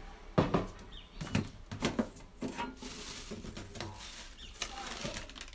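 Irregular knocks, taps and rustles of small objects being picked up and moved about by hand, the sharpest knock about half a second in.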